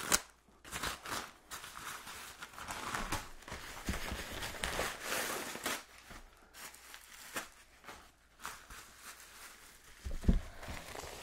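Packing paper rustling, tearing and crumpling in irregular bursts as a long package is unwrapped, with plastic bubble wrap crinkling near the end and a few soft knocks of handling about ten seconds in.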